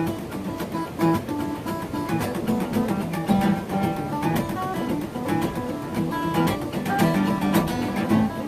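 Guitars playing a blues jam: chords played underneath while single-note lead lines ring out above them.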